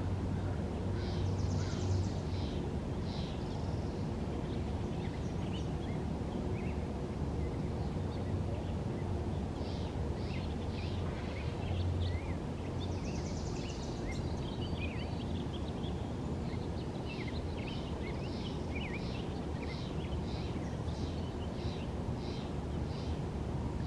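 Outdoor ambience: birds chirping and trilling, with a run of repeated short calls, about two a second, near the end, over a steady low rumble.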